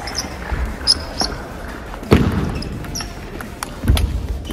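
Table tennis rally: a string of sharp ball clicks off rackets and table, with two heavier thuds about two seconds in and near the end.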